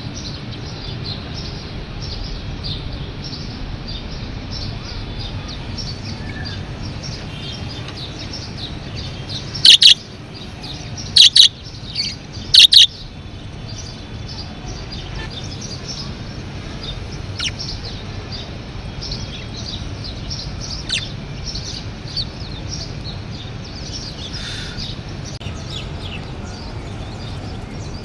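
A flock of budgerigars chattering with continuous quick chirps and warbles, broken around the middle by a few loud, sharp calls, over a steady low background hum.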